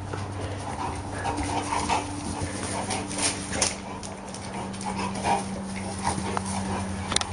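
A dog whimpering and panting as it plays with a young deer, over a steady low hum.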